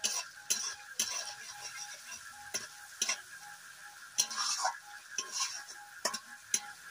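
A long metal spatula stirring and scraping thick frying masala in a metal kadai. It clinks against the pan at an uneven pace, about one to two knocks a second, the masala being fried until the oil separates.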